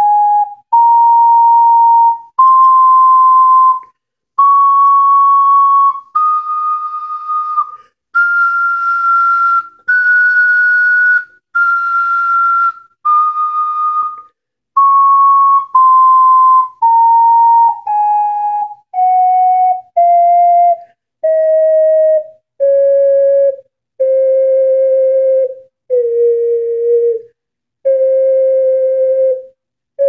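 Alto C ocarina playing single held notes one after another, climbing a scale to its highest notes about ten seconds in, then stepping back down below where it began; the highest notes carry more breath noise. This ocarina plays sharp, tuned closer to A = 465 Hz than to concert pitch.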